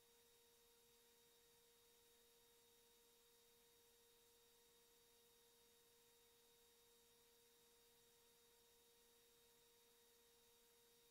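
Near silence, with only a faint, steady, unchanging tone.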